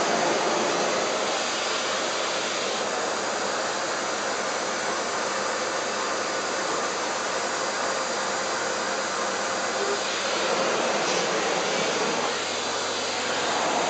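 Vacuum cleaner running with a steady whooshing hiss, its tone shifting slightly about three seconds in and again about ten seconds in.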